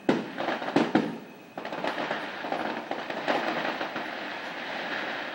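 Aerial fireworks: four sharp bangs in quick succession in the first second, then a sustained dense noise of many overlapping small bursts.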